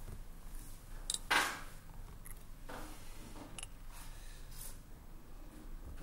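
Rustling and handling noise with a few scattered sharp clicks, from people getting laptops out of bags and opening them. The loudest is a brief rustle about a second in.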